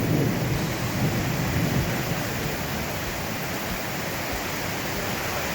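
Steady heavy rain falling, with a low rumble of thunder in the first two seconds.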